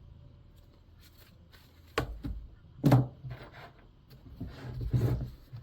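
Chainsaw parts and hand tools being handled on a workbench: two sharp clicks or knocks about two and three seconds in, the second the loudest, then a short spell of rustling and scraping near the end.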